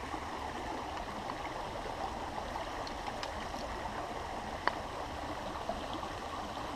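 Small creek running steadily, with a few faint clicks, one a little clearer about two-thirds of the way through.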